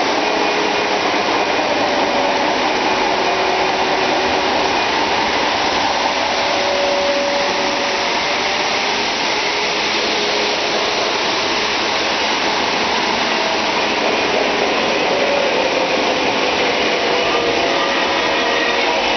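Several Lionel O-gauge electric toy trains running at once, a steady din of wheels rolling on three-rail track and electric motors whirring, with a faint whine running through it.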